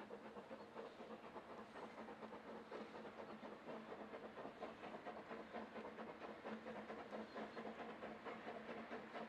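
Narrow-gauge steam locomotive working in the distance: a faint, fast, even rhythm of exhaust beats over a steady tone, growing slightly louder as it approaches.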